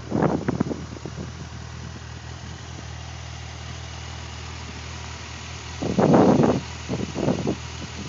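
Gusty wind buffeting the microphone: a loud gust at the start and two more about six and seven seconds in, over a steady low hum.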